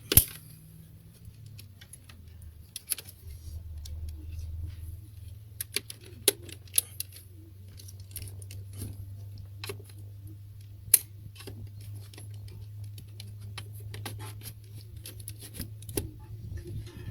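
Irregular sharp clicks, snaps and taps of an Opel Corsa C's plastic relay box being taken apart by hand, the loudest right at the start and again about eleven seconds in, over a steady low hum.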